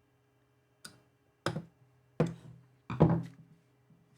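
Four sharp knocks with a short low ring after each, the last the loudest: a hard drive being fitted into place in the NVR's metal case.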